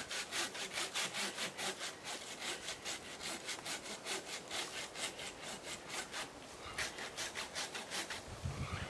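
Fiskars folding hand saw cutting through a tree limb, its blade rasping through the wood in quick, even back-and-forth strokes, with a short break around six seconds in.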